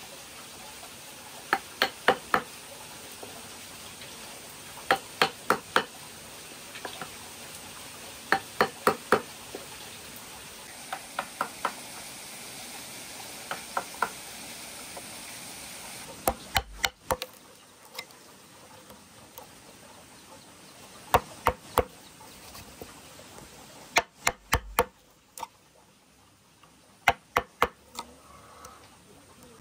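Wooden mallet striking a chisel into a block of wood, sharp knocks in quick groups of two to four every few seconds, as a rectangular mortise is cut.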